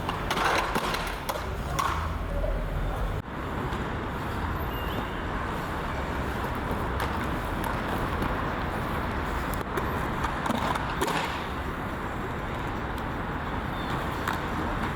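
Skateboard wheels rolling over street pavement, with a few clacks and knocks of the board.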